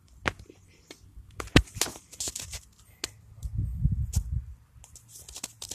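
Rustling and crackling noise, likely from handling: a string of irregular sharp clicks and crackles, with a low rumble a little past the middle.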